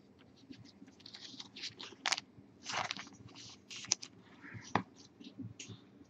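Trading cards and plastic card sleeves handled on a tabletop: light, scattered rustling and scraping with a few sharp clicks.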